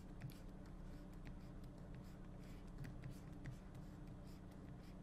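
Faint scratching and light taps of a stylus drawing on a graphics tablet, over a steady low hum.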